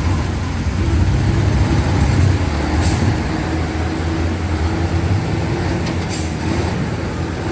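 Motor vehicle engine running steadily at low revs, over a continuous even rush of noise.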